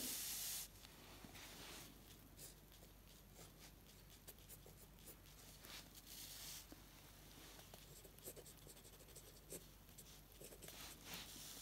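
Faint scratching of a fountain pen nib on paper as characters and pinyin are written, with small irregular ticks of the nib that come thicker in the second half. A short hiss sounds right at the start.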